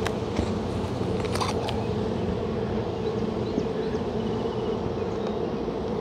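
Honeybees buzzing steadily around an open hive, a continuous hum. In the first two seconds a few short clicks and scrapes come from a metal hive tool prying between the wooden frames.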